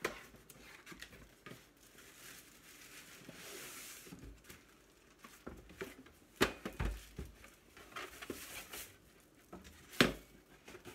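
Cardboard box and plastic packaging rustling and crinkling as a sparkling water maker and its bottle are slid out of the box. Two sharp knocks as items are set down on the countertop, the louder one near the end.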